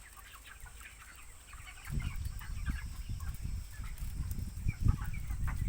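A flock of chickens clucking, with many short calls overlapping. From about two seconds in, a low rumble of wind on the microphone joins them.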